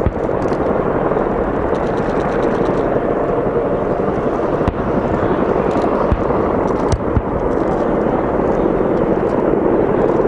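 Steady helicopter rotor and engine noise at a distance, with a few sharp bangs of gunfire or blasts about halfway through.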